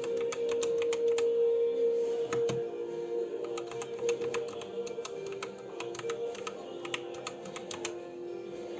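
Typing on a ZET Blade Pro mechanical keyboard with Kailh Red optical linear switches: quick, irregular key clicks and clacks, several a second, over steady background music.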